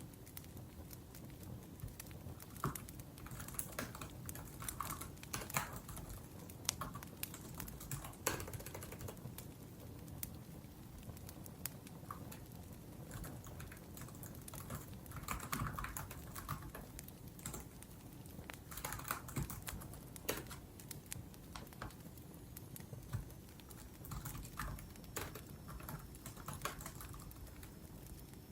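Laptop keyboard typing: uneven runs of quick key clicks with short pauses between them.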